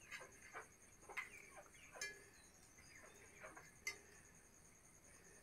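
Near silence with a few faint clicks and taps as a flat steel brush-cutter blade is handled; the sharpest click comes about four seconds in.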